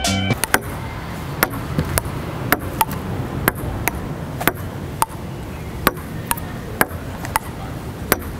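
Table tennis rally on an outdoor table: the ball clicks in turn off the paddles and the table top, about two hits a second, over a steady outdoor background hiss.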